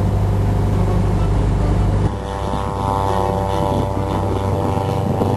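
Powered glider's propeller engine droning steadily; about two seconds in it dips slightly in level and takes on a smoother, higher-pitched hum.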